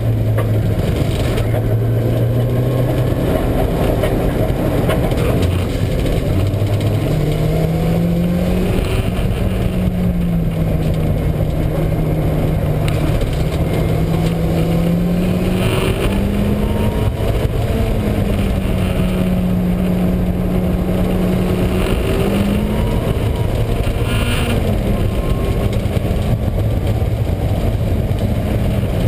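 Mazda Miata engine running hard on track, its pitch rising and falling repeatedly as the car accelerates and slows, over a loud low rumble and drone. The uploader identifies the noise as a failing wheel bearing, heard mainly under engine braking.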